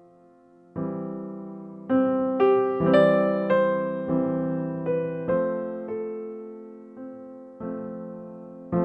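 Soft background piano music: notes and chords struck about once a second, each fading away.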